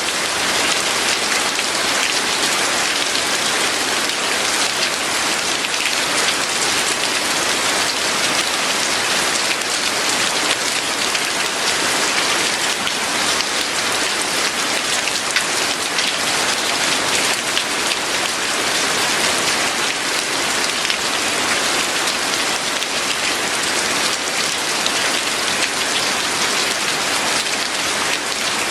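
Steady, heavy rain falling on a surface: a dense, even hiss of drops.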